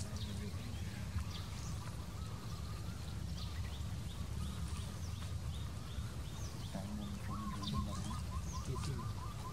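Outdoor birds chirping and calling, with a quick run of repeated notes near the end, over a steady low rumble.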